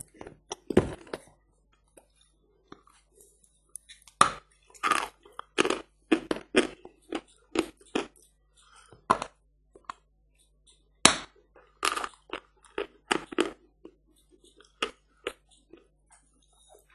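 A person biting into a large lump of hard natural 'Barsuk' chalk and crunching it. A sharp crack comes just under a second in, then after a pause of about three seconds come quick, irregular crunches and cracks, the loudest about eleven seconds in.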